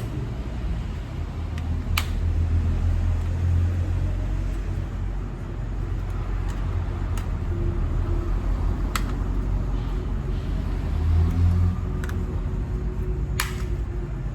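A steady low rumble, with a few sharp clicks scattered through it.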